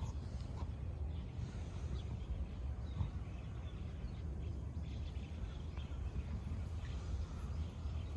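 Outdoor background noise: a steady low rumble, with faint bird chirps now and then.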